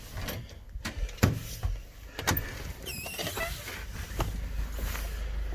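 A series of sharp knocks and clicks, with a brief squeak about three seconds in, then a steady low rumble that starts about four seconds in.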